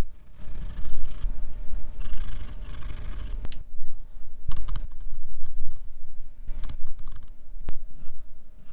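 Graphite pencil scratching on drawing paper in quick shading strokes, dense for the first few seconds and then quieter, with a few sharp clicks.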